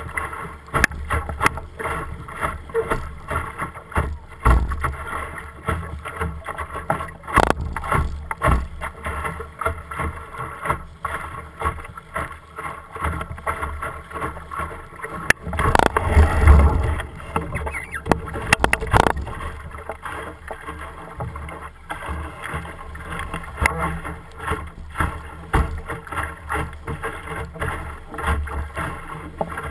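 Choppy water slapping and splashing against the hull of an Optimist sailing dinghy under way, with wind buffeting the microphone and frequent short knocks. There is one louder surge about halfway through.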